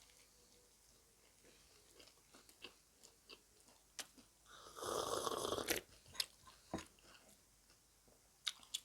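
Close-miked eating sounds of someone eating bhatura and chole: soft chewing with scattered mouth clicks and smacks, and one loud breathy rush lasting about a second near the middle.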